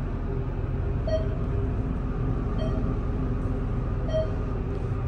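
Glass elevator car running with a steady low rumble, and a short beep about every second and a half as it passes floors.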